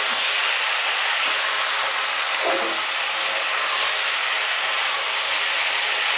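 Diced kohlrabi frying with spices in hot mustard oil in a steel kadai, a steady sizzle as the cubes are stirred with a metal spatula. A spatula scrapes against the pan about halfway through.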